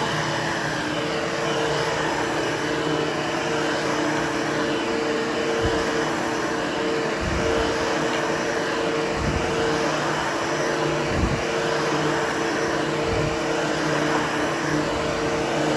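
Vacuum cleaner running steadily, power-grooming the pile of a freshly cleaned, still slightly damp carpet. There is an even motor whine, and from about a third of the way in a few soft low bumps come roughly every two seconds.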